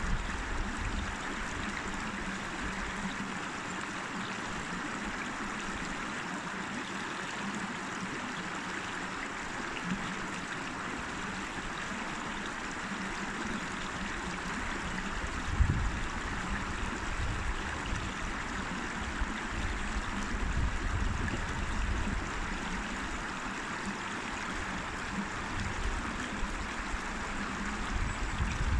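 River water rushing and splashing steadily over rocks, with a few brief low rumbles.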